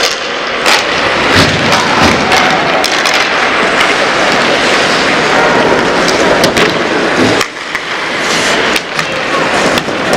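Ice hockey play on a rink: skate blades scraping and carving the ice, with sticks and puck clacking in frequent sharp knocks.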